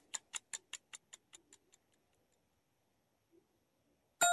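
Clock-tick sound effect of a quiz countdown timer, about five ticks a second, fading out and stopping in the first two seconds. After a pause, a bright chime rings near the end as the correct answer is revealed.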